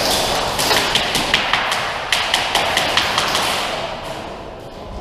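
Airsoft gunfire in an indoor arena: irregular sharp taps of shots and BBs striking cover, several a second, over a constant din that echoes in the hall, thinning out after about three and a half seconds.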